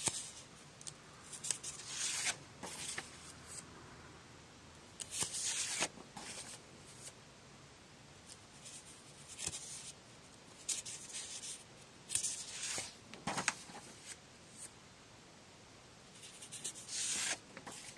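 Sheets of paper being handled and slid over one another, rustling in about six short bursts as one sheet is swapped for the next.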